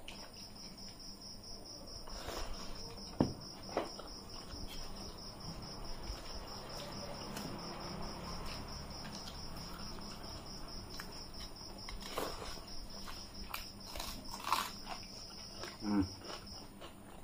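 Eating by hand: fingers mixing rice and curry on steel plates, with chewing and a few sharp clicks, the loudest about three seconds in. A steady high-pitched pulsing trill runs behind it and breaks off briefly near the end.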